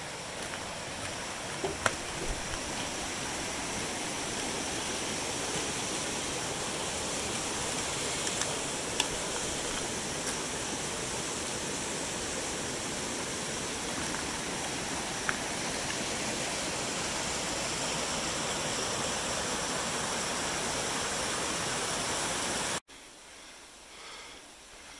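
Steady rush of a creek running, with a few sharp clicks. It cuts off suddenly near the end, leaving a much quieter stretch with soft footsteps in snow.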